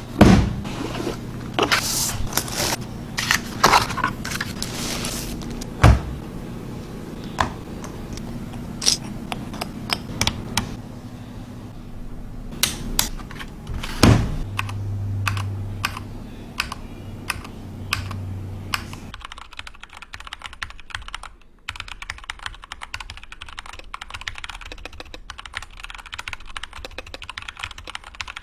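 Keychron K2 mechanical keyboard being typed on: scattered keystrokes with a few louder knocks for the first two-thirds, then fast, continuous typing.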